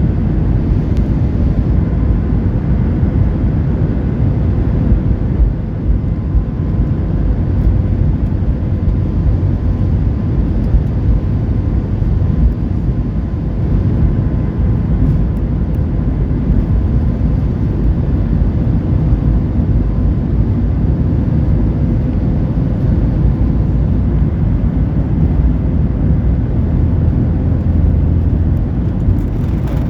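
Boeing 737 MAX-8 cabin noise under way: the CFM LEAP-1B jet engines and rushing air make a steady, loud, deep noise with a faint steady hum over it.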